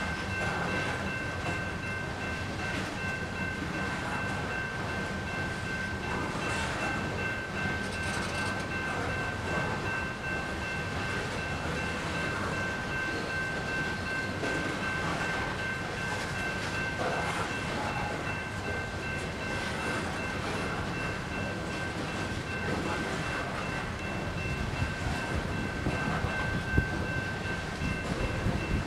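Loaded coal hopper cars rolling past at a grade crossing, wheels rumbling and clacking over the rail joints, with the crossing's GS Type 2 bell ringing steadily over it. A few sharper knocks come near the end.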